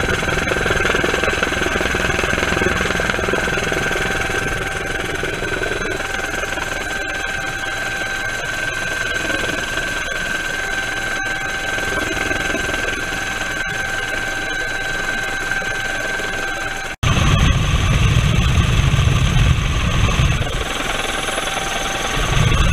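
Helicopter cabin noise with the side door open: the engine and rotor run steadily with a high, even whine. About 17 seconds in the sound cuts abruptly and a much louder low rumble takes over.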